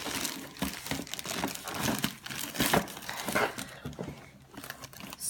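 Crinkly packaging or a bag rustling as it is handled, with quick irregular crackles.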